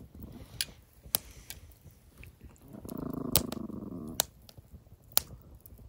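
A dog growls low for a little over a second, about three seconds in, while a campfire crackles with several sharp pops.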